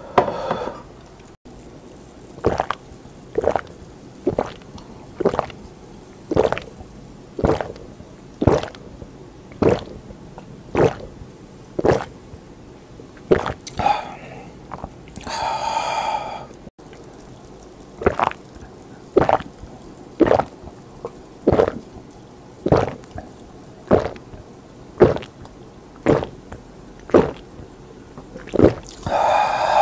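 A person chugging soda from a glass without stopping, swallowing in loud, even gulps about once a second. Twice, after a glass is finished, there is a long breathy exhale.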